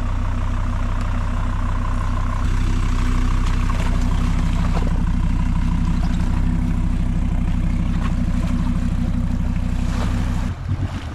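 Diesel off-road car's engine running at a steady speed, a little louder about two seconds in. Near the end the steady engine note gives way to an uneven, choppier sound.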